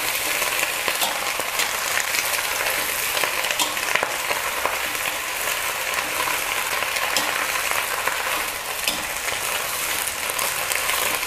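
Torn cabbage sizzling in hot oil over high heat in a metal wok, while a spatula turns and scrapes it. A steady frying hiss, with small clicks from the spatula here and there.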